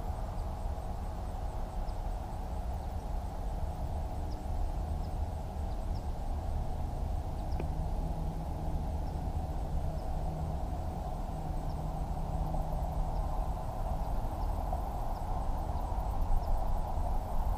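Steady outdoor ambience at the pond: a constant low rumble with a steady mid-pitched hum over it and a few faint, scattered ticks.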